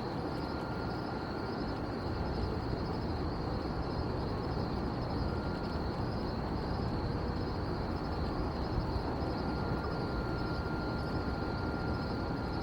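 Steady outdoor night ambience: a continuous low rumble with a constant high-pitched trill over it.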